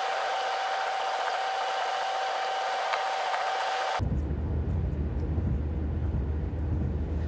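A steady hiss with a faint steady whine, which gives way abruptly about four seconds in to the low rumble of a car cabin on the move.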